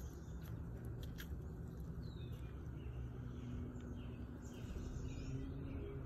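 Outdoor ambience: a steady low rumble with a few faint bird chirps and short down-slurred calls, and a few light clicks in the first second or so. A faint steady hum comes in about halfway.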